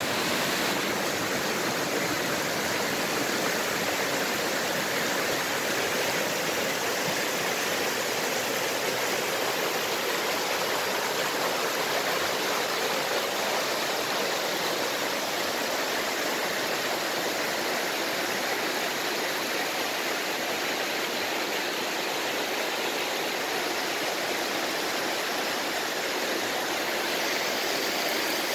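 Shallow, rocky river rushing over boulders and small rapids: a steady, even rush of running water.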